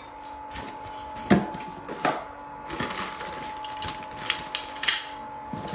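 Clear plastic parts bags crinkling and cardboard packaging rustling under gloved hands, with sharper crackles about a second and two seconds in.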